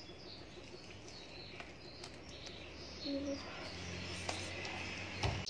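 Faint soft sounds of a creamy cake batter of margarine, sugar and eggs being worked by hand in a glass bowl, with a few small clicks, while birds chirp in the background.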